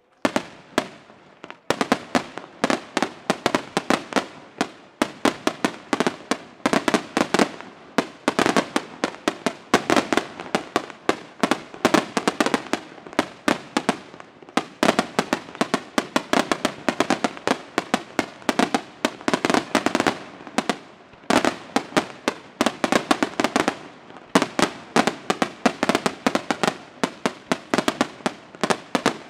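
Senatore Fireworks display: aerial shells bursting in a dense, continuous barrage of sharp bangs, several a second, with a couple of brief lulls in the last third.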